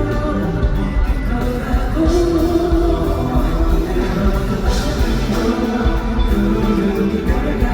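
Loud pop-rock concert music with a singing voice and guitar, played over a venue sound system during a sound check.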